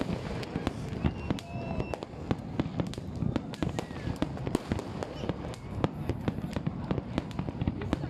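Fireworks going off: a dense, irregular string of sharp bangs, several a second, over a steady low rumble.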